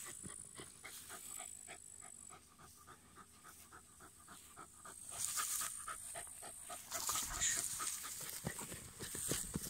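A dog panting hard in quick, even breaths while digging, with louder bursts of scratching soil and rustling grass in the second half.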